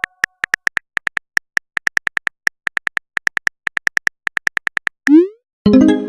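A rapid run of short, identical electronic clicks, about five a second, like a typing or text sound effect. Near the end comes a short rising swoop, then a chime.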